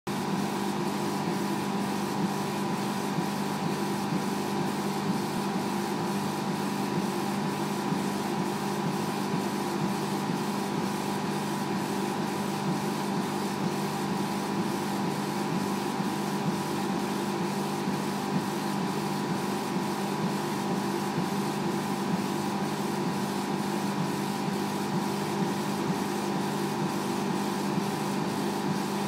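Laser cutter rastering through a stack of paper sheets, its extraction fan running: a steady hum with a faint, even ticking about three times a second.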